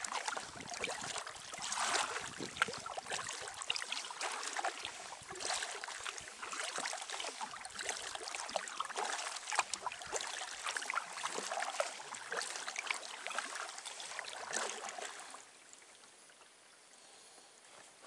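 Kayak paddling on calm water: the paddle blades dip and drip, with small splashes and trickling water. The paddling stops about three seconds before the end, and it goes much quieter.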